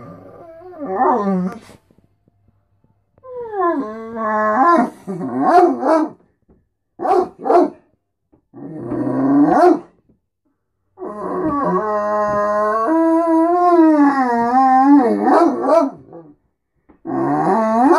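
Great Dane "talking": a string of drawn-out, howl-like calls that bend up and down in pitch, broken by short pauses, with one long call of about five seconds in the second half. It is his morning demand to be fed and paid attention to.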